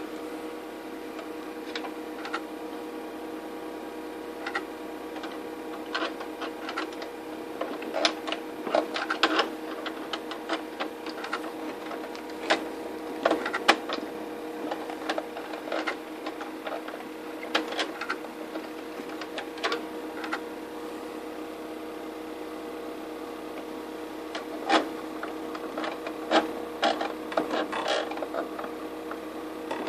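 Irregular clicks and scrapes of metal tweezers working inside a computer's DVD drive to free a stuck match, over a steady hum.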